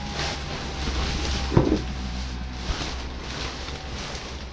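Steady whir of an inflatable shark costume's built-in blower fan keeping the suit inflated, with soft rustling of the inflated nylon as the wearer moves, and one short louder sound about a second and a half in.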